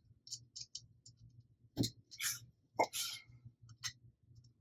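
Small screws and 3D-printed plastic parts being handled: light scattered clicks, with two sharper clacks a little under two and three seconds in, each followed by a short rattle.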